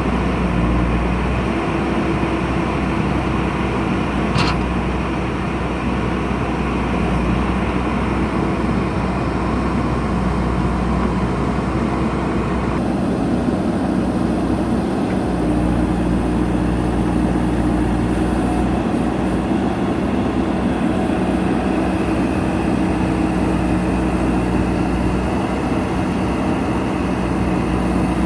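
JCB backhoe loader's diesel engine running steadily at working revs, a continuous hum.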